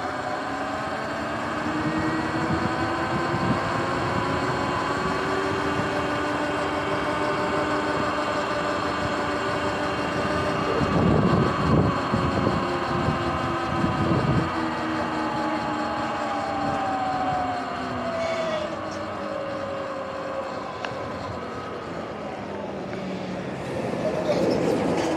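Sur-Ron electric dirt bike's motor and drive whining while riding, several pitches rising and falling together with speed over tyre and wind noise. There are a few low rumbles around halfway, and the whine drops and swings near the end as the bike slows.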